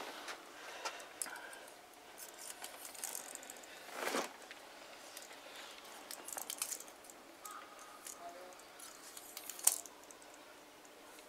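A thin hand-held rod knocks and scrapes against a glass viewing window in light, scattered clicks and rattles. There is a louder knock about four seconds in and a sharp tap near the end.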